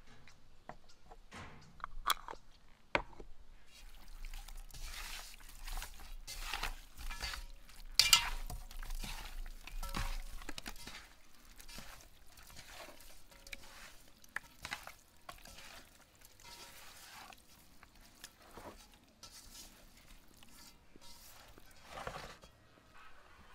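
Hands kneading raw beluga fish pieces in an aluminium basin, working spices in: irregular wet squelching and slapping, busiest in the first half, with a few sharp clicks near the start.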